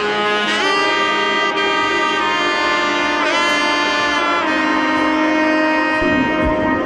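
Background music of long held notes that change every second or two, with a low beat entering near the end.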